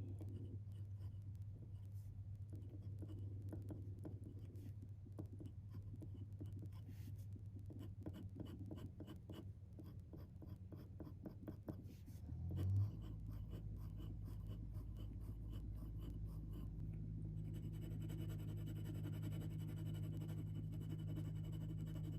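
Fountain pen ink being swatched onto paper: rapid, light scratching strokes over a steady low electrical hum, with a brief bump about thirteen seconds in.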